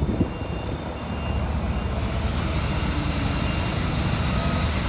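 Heavy diesel truck running through a modified exhaust: a deep, steady rumble that grows louder about two seconds in and then holds.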